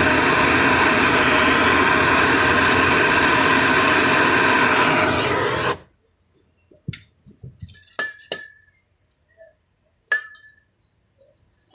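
A machine runs loudly and steadily with a constant hum, then cuts off suddenly about six seconds in. Light metallic clinks and taps of tools and fittings follow, two of them ringing briefly.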